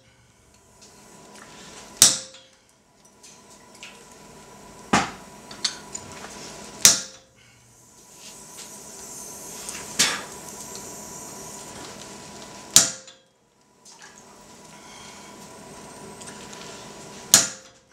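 Hand hammer striking a hand-held slitting chisel driven into a red-hot steel bar on an anvil, cutting a slit down the middle of the bar. Six separate ringing blows, spaced unevenly two to three seconds apart.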